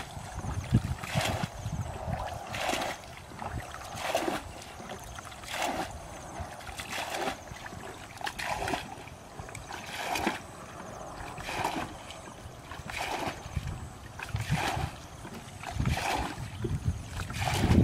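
Muddy pond water being bailed out with a plastic bucket: a regular scoop-and-throw splash about every second and a half.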